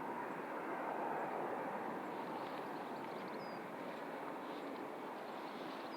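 Steady airport background noise, the even rush of jet engines running, with a few faint high chirps.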